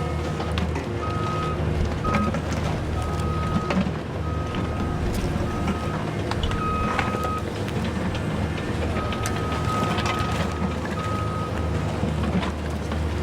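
Excavator diesel engine running steadily while its warning alarm beeps on and off at uneven intervals, with scattered metal knocks and clanks.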